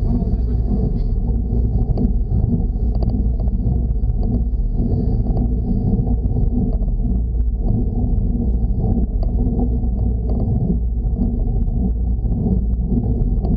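Steady low rumble of wind buffeting the microphone of a bike-mounted action camera during a slow road-bike climb.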